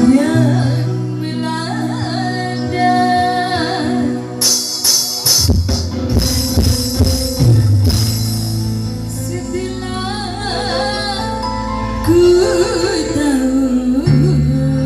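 Dangdut music played loud through a large PA sound system: singing over sustained bass notes, with tambourine and a run of drum hits about a third of the way in.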